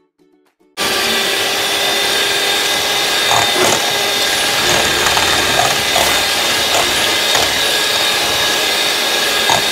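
Electric hand mixer switched on about a second in and running steadily, its beaters whisking eggs in a stainless steel bowl, with a few light knocks.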